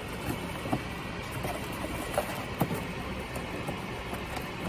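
A few light knocks and rustles of a plastic bag and a cardboard box being handled, over a steady hum of workshop background noise.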